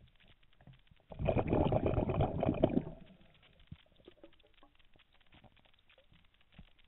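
Scuba diver's exhalation through a regulator underwater: a rush of bubbles starting about a second in and lasting about two seconds, with faint scattered clicks before and after.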